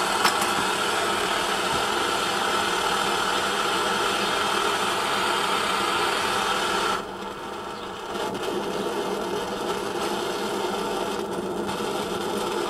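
Optimus 8R pressure stove burner roaring steadily like a helicopter; about seven seconds in, the roar drops suddenly to a quieter, steadier hiss.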